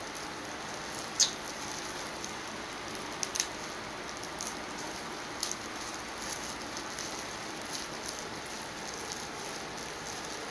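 Boiled crawfish being peeled by hand in plastic gloves: sharp cracks of shell and crinkling plastic over a steady hiss, the loudest crack about a second in.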